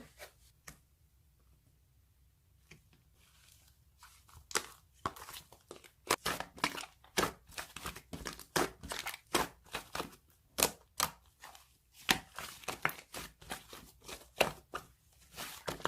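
Slime being squished and pressed by hand, giving irregular crackling, popping clicks. It starts faint and grows busy from about four seconds in.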